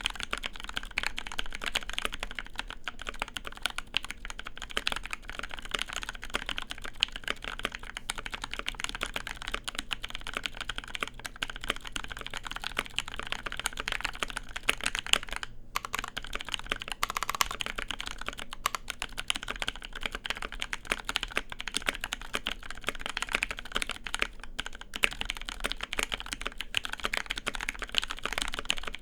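Continuous typing on a mechanical keyboard, a keycap sound test comparing 1.5mm ABS GMK keycaps with 1.5mm PBT NicePBT keycaps, with a brief break about halfway through.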